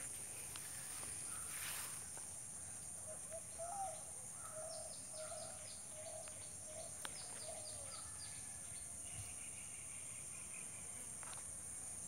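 Outdoor daytime ambience: a steady high-pitched insect drone, with birds calling over it. A run of quick, high, down-slurred notes and lower short chirps comes through the middle, and fainter calls follow later.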